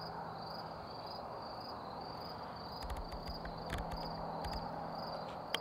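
Crickets chirping in a steady, even rhythm, about two high chirps a second, over a faint low hum. A few soft knocks and thuds come in the middle.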